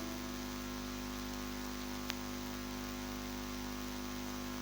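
Steady electrical hum with a faint hiss, with one faint click about two seconds in.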